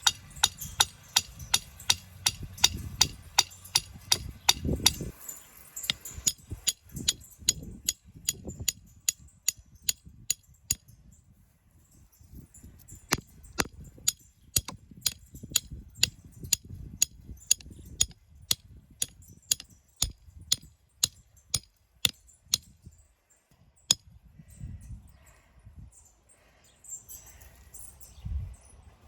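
A long series of sharp, rapid taps, about three to four a second, with a short pause about eleven seconds in; the taps stop a few seconds before the end. A low rumble of handling noise lies under the first few seconds.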